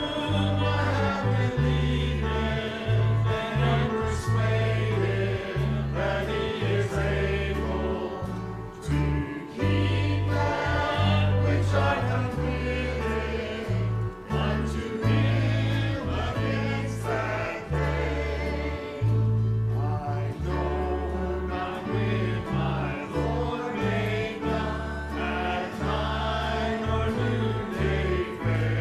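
Church congregation singing a hymn together over instrumental accompaniment, with a bass line that changes note about once a second.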